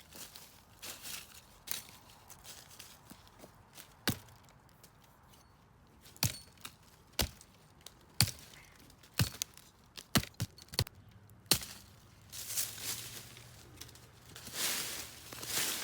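A series of sharp wooden knocks and cracks, about ten, irregularly spaced and bunched near the middle, followed by rustling brush near the end.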